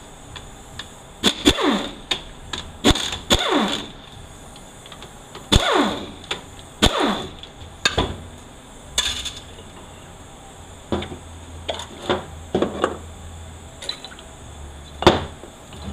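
Separate sharp metallic clinks and knocks, each with a short ringing tail, coming every second or so: hand tools and loose bolts handled and set down on the metal parts of a 4L80E transmission during teardown.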